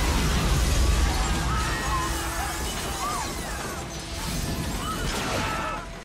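Film explosion: a heavy blast rumble, strongest in the first two seconds, with glass shattering and debris crashing down.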